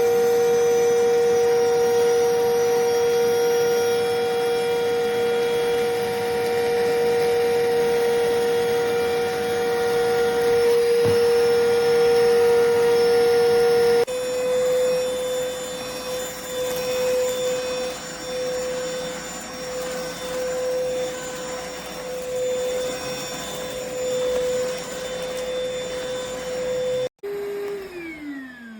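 iwoly C150 cordless stick vacuum's motor running with a steady whine. About halfway through, the pitch sits slightly higher and the level wavers. Near the end the motor is switched off and its whine falls in pitch as it spins down.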